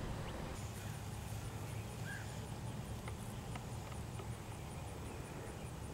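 Quiet outdoor background: a steady low rumble with a few faint ticks and one short faint chirp about two seconds in.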